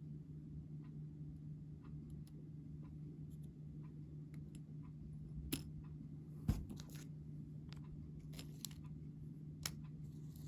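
Light, scattered clicks and taps of small plastic Mini Brands capsule parts and miniatures being handled, with a sharper knock about six seconds in, over a faint steady hum.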